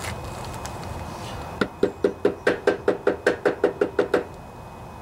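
Rubber mallet tapping a new flywheel key into the keyway of a Briggs & Stratton lawnmower crankshaft: about a dozen quick, evenly spaced taps, some five a second, starting about a second and a half in and stopping about a second before the end.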